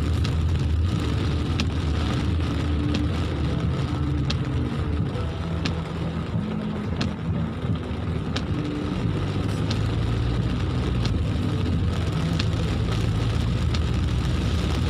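Inside a car driving in rain: steady engine and road noise whose engine note shifts a couple of times, with scattered sharp ticks over it, like drops hitting the glass.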